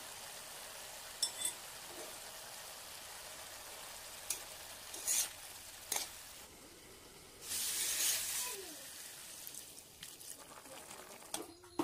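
Diced chayote squash frying in a wok with a faint steady sizzle, a spatula clinking and scraping against the pan several times as it is stirred. About halfway through comes a louder hissing rush lasting about a second.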